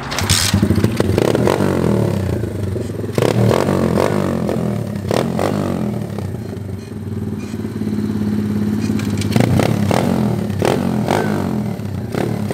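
SSR 125cc pit bike's single-cylinder four-stroke engine, kick-started and catching within about a second. It then runs and is blipped on the throttle several times, rising and falling in pitch.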